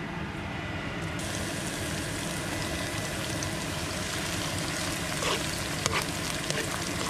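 Curry paste hitting hot oil in a wok and sizzling, starting suddenly about a second in. A few scrapes and taps of a plastic spatula stirring the paste come near the end.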